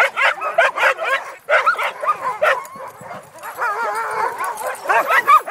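Many sled dogs barking and yipping at once, a dense chorus of overlapping calls, with a stretch of wavering drawn-out howls about midway.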